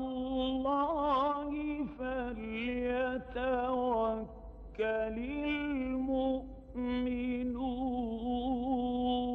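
A male reciter chanting the Quran in slow, melodic tajwid, with long held notes and ornamented turns, in phrases separated by short pauses at about two, four and a half, and six and a half seconds in.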